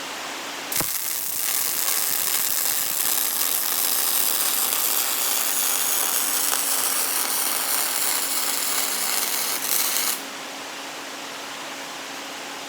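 MIG welding arc sizzling steadily as a bead is run on a 3-inch solid steel shaft. It strikes with a sharp click about a second in and cuts off abruptly about ten seconds in.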